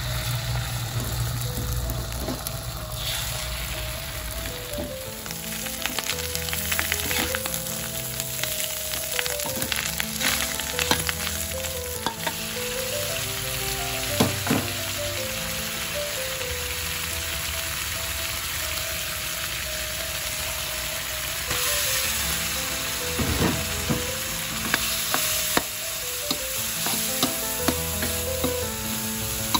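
Food sizzling in a hot wok as egg, then shrimp paste chili dip and rice are stir-fried, with a metal spatula scraping and clicking against the pan. A quiet background melody plays underneath.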